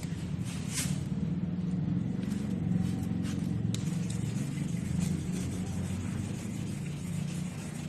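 Power sander running steadily on a powder-coated surface, a low even hum with a few light ticks.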